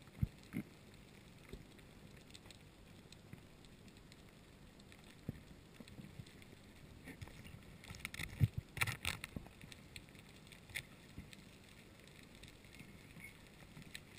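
Faint underwater sound picked up through a camera housing: scattered single knocks and clicks, and a short burst of dense crackling about eight to nine seconds in.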